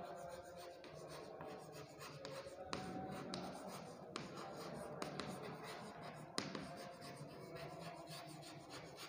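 Chalk writing on a blackboard: faint scratching and light strokes as words are written, with a few sharper taps of the chalk against the board.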